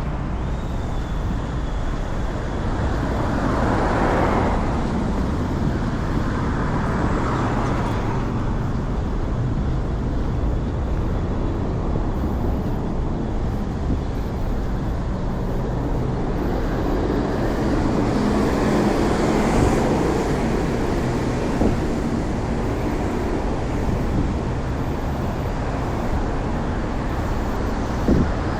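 Road traffic: a steady rumble of cars and other vehicles going by, with a couple of louder swells as vehicles pass close, one about four seconds in and another around eighteen to twenty seconds in.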